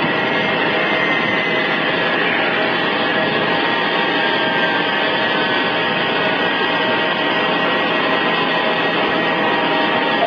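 Airbus A320's turbofan jet engines running near idle: a steady loud rush with a thin high whine, a few of its tones sinking slightly as the engines wind down at the gate.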